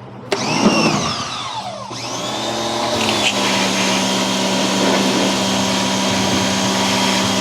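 Electric pressure washer running and spraying: a motor hum under a loud hiss of spray. For the first couple of seconds there are swooping tones, then it settles into a steady sound.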